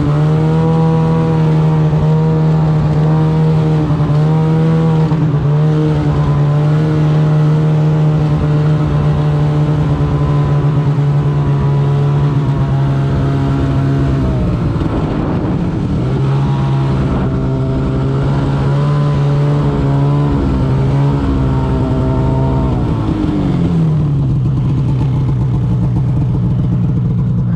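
Snowmobile engine running steadily at speed, heard from on the sled. About halfway through the engine note drops and then picks back up. Near the end it falls to idle as the sled comes to a stop.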